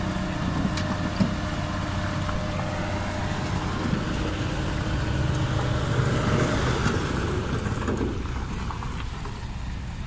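Hino 500 dump truck's diesel engine running steadily while its tipper bed tips up and the load of rocks and soil slides out with a rough rumble, loudest around six to eight seconds in. A single sharp knock sounds about a second in.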